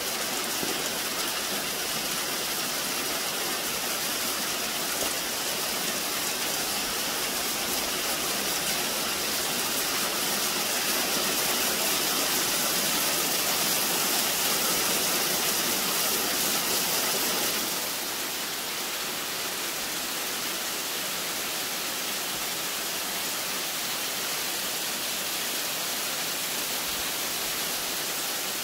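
Rain mixed with small hail falling steadily on parked cars and pavement, an even hiss. It is louder for a stretch in the middle, then drops a little about two-thirds of the way through.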